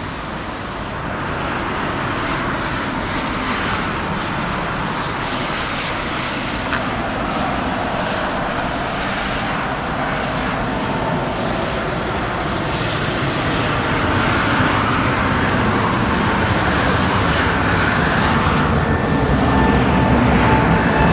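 The turbofan engines of a four-engine jet airliner at climb power as it passes low overhead: a steady jet roar that grows slowly louder. Faint whining tones come in during the second half.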